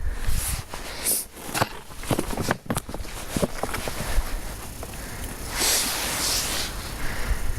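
A hiker's heavy breathing close to the microphone, with a long exhale about six seconds in, over footsteps crunching on a dirt trail. He is out of breath from hiking.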